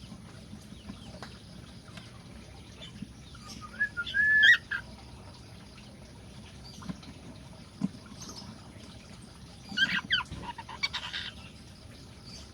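Cockatiels calling: a loud whistled call about four seconds in, and a burst of shrill calls and squawks around ten seconds in, with faint chirping between.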